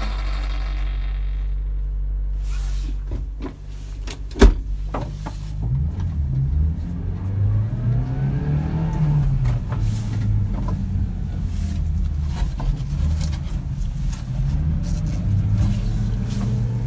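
1994 Subaru Sambar kei truck's small four-cylinder engine, heard from inside the cab: a steady idle, a single sharp knock about four and a half seconds in, then the engine pulling away and driving slowly, its pitch rising and falling as it goes up and down through the gears.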